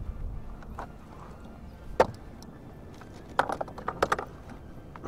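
Knocks and clicks from a fish and a plastic lip gripper being handled on a plastic kayak: one sharp knock about two seconds in, then two quick clusters of clicks a little after three and four seconds in.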